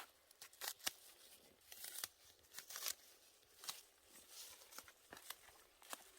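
Dried, blanched mulberry leaves crackling and rustling as they are handled and packed into plastic bags. The sound comes as irregular crisp crackles, some in short clusters.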